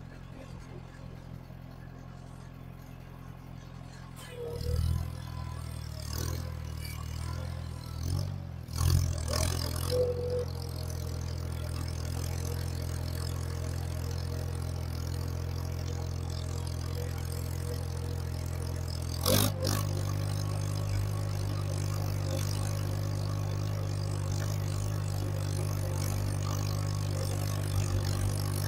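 Farmall 140 tractor's four-cylinder gasoline engine running steadily as the tractor pulls its cultivator shanks along the garden, laying off rows. A few clattering knocks come in the first third and one sharp knock about two-thirds through, after which the engine runs a little louder.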